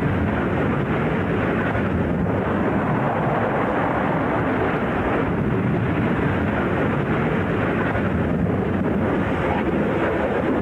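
Aircraft engine noise, a steady even rush, with wind on the microphone.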